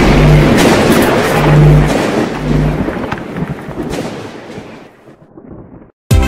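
Intro music with a deep rumbling boom-like wash and a pulsing bass note, fading out over a few seconds into a moment of silence. New background music starts right at the end.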